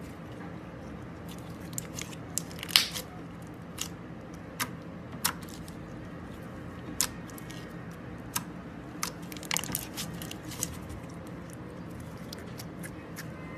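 Slime being played with, giving irregular sharp pops and crackles, about fifteen in all, the loudest a few seconds in. A steady low hum runs underneath.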